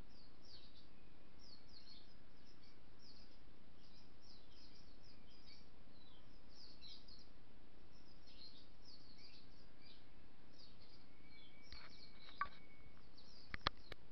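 Small birds chirping, many short falling chirps one after another, over a steady background hiss. A few sharp clicks near the end.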